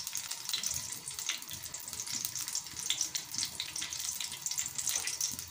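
Chopped onion sizzling in a little hot oil in a pot: a steady crackling hiss with scattered small pops.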